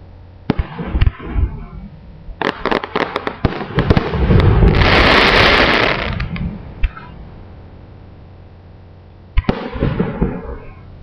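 Fireworks shells bursting overhead: a few sharp bangs, a quick run of bangs about two to three seconds in, then a loud dense crackling for a second or so around the middle, and another bang with crackles near the end.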